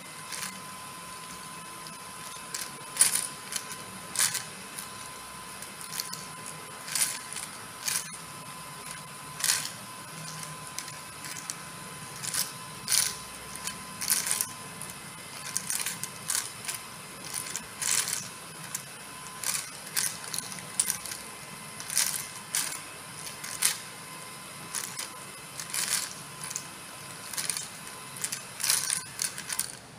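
Plastic beads tumbling inside a turning clear plastic wheel, clicking and clattering against the compartment walls at irregular moments, roughly once or twice a second. Under the clicks runs a steady high hum from the small DC motor that turns the wheel.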